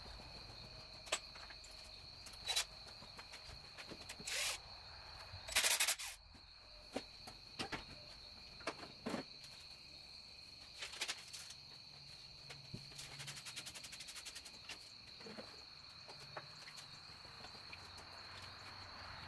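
Scattered metallic clicks and knocks of hand tools working on a small-block Chevy 350's exposed valve train. The loudest is a short clatter about six seconds in, and a quick run of rapid clicks comes about two-thirds of the way through. A faint steady high whine runs underneath.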